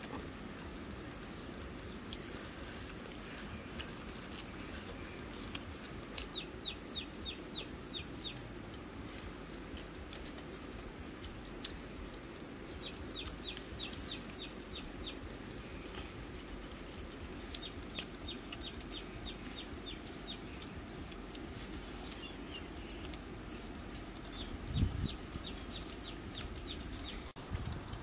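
Rural outdoor ambience: a steady high insect drone, with a bird calling in quick runs of short repeated notes four times. A dull thump about 25 seconds in.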